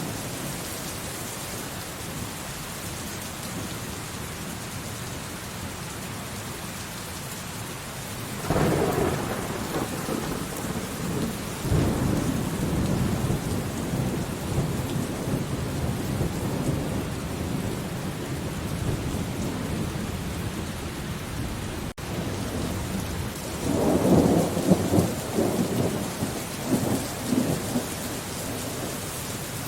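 Steady rain falling, with thunder: a rumble breaks in about eight seconds in and rolls on for several seconds, and a second, crackling peal comes near the end.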